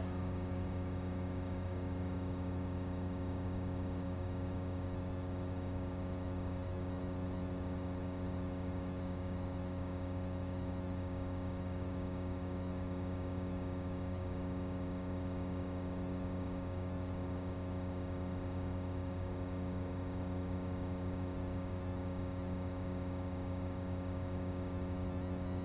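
Steady electrical hum made of several low tones stacked together, unchanging throughout. It is the kind of buzz an analog FPV goggle recording carries on its audio track.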